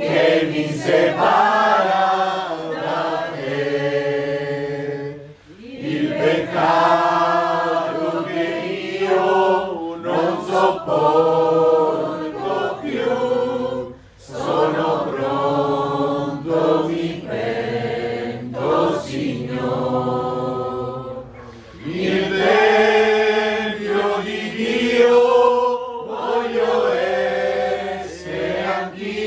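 A small group of women singing a hymn together in slow phrases, with short breaks for breath between lines.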